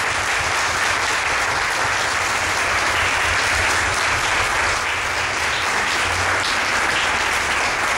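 A roomful of guests applauding together, a steady, even clapping.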